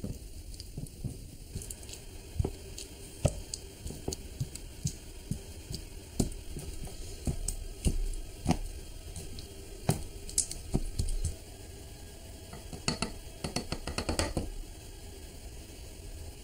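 Light, irregular taps and scrapes of miniature kitchen tools: a tiny metal sieve and spoon, and a small wooden pestle working in a little wooden mortar. A quick run of taps comes near the end.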